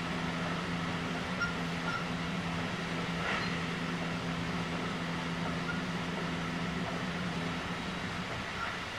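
Running noise heard inside a JR West 223 series 2000-subseries electric train with a Toshiba IGBT inverter, travelling at speed: an even rumble of wheels on rail. A steady low hum under it stops about three-quarters of the way through.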